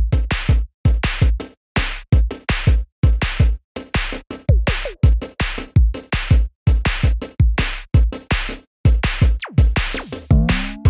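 Background music with a steady, fast beat of short punchy drum hits, about three to four a second, and a rising sliding tone near the end.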